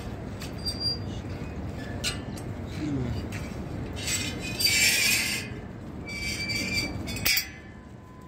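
Steady murmur of a large outdoor crowd, with a few sharp clicks and a burst of hissing noise about four seconds in.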